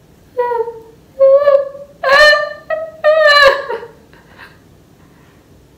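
A girl's high-pitched wordless vocalising: five short 'ooh'-like notes in the first four seconds, the third and fifth the loudest, then quiet.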